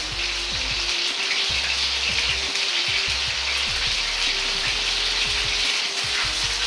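Thin strips of beef frying in oil in a wok, a steady sizzling hiss. This is oil-blanching in oil that is not yet very hot, the stage where the meat's surface turns white.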